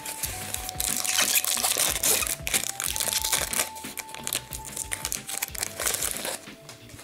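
Foil wrapper of a hockey card pack crinkling loudly as it is torn open and pulled off the cards, for about five seconds, over background music with long held notes.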